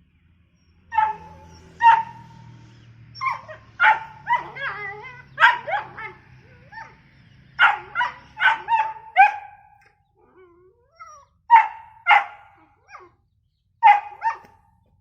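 A dog barking repeatedly in short bursts, with a brief pause about two-thirds of the way through before a few more barks.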